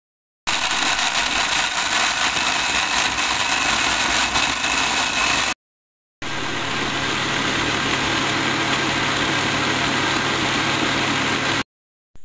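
Philips countertop blender running, grinding grated coconut with water to make coconut milk. Two steady runs of about five seconds each, each starting and stopping suddenly.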